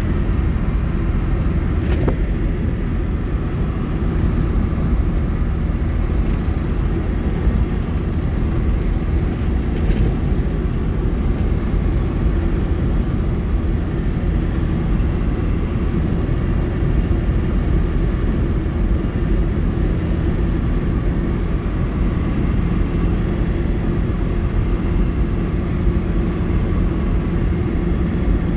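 Steady, low engine and road noise of a car driving along without a break.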